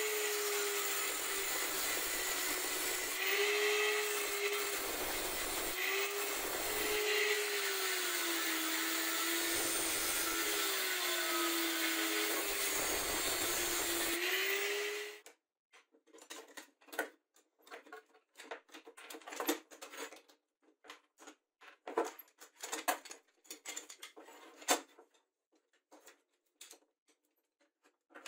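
Corded angle grinder with a cut-off disc cutting through the steel of a scissor car jack, its whine sagging and recovering in pitch as the disc bites under load; it stops suddenly about fifteen seconds in. After that, scattered light metal clicks and clinks as the cut jack parts and screw are handled.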